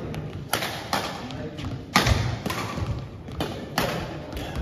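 Badminton rackets striking a shuttlecock in a fast doubles rally: a string of sharp hits about every half second, the loudest about two seconds in, with footfalls on the court floor between them.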